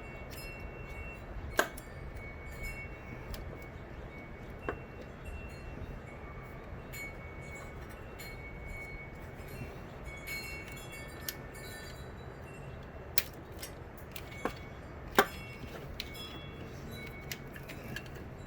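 Scattered metallic clinks and taps of hand tools and engine parts being handled, a few sharper knocks among them, over a steady low hum.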